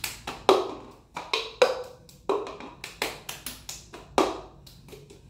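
Cup-rhythm routine: hand claps alternating with a plastic cup being tapped, lifted and knocked down on a granite countertop, a quick, even rhythm of sharp knocks.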